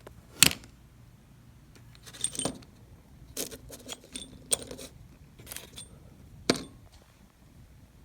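Small steel ball bearings from a Saginaw steering gear clinking and rattling against metal as they are handled and dropped, in about six short clattering bursts with a brief bright ring; the loudest come about half a second in and again at about six and a half seconds.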